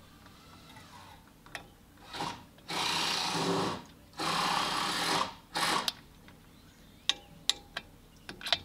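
Two long rasping scrapes about a second apart, then several sharp metal clicks near the end, as the cylinder barrel and piston of a Kohler MV18S twin are worked by hand onto the connecting rod.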